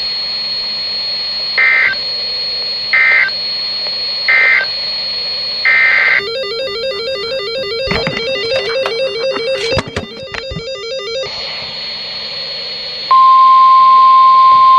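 NOAA Weather Radio EAS data tones. Three short warbling end-of-message bursts come about a second apart, followed by several seconds of buzzy warbling SAME header data announcing the next alert. About 13 seconds in, the steady 1050 Hz warning alarm tone comes on, loud.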